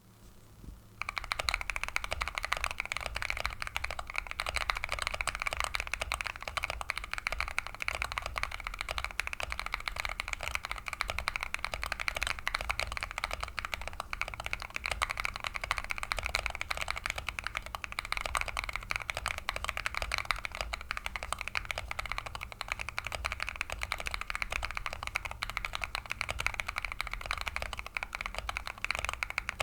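Keychron Q1 mechanical keyboard with Epsilon linear switches on a polycarbonate plate and IFK Polish keycaps, typed on fast and without pause. A dense, steady stream of keystrokes begins about a second in.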